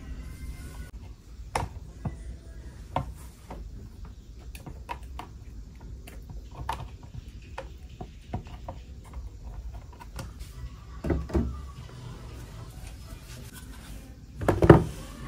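Fruit and clear plastic storage containers being handled on a wooden table: scattered light clicks and taps as grapes are packed into a plastic container. Near the end comes a louder knock as an apple is set into a clear plastic bin.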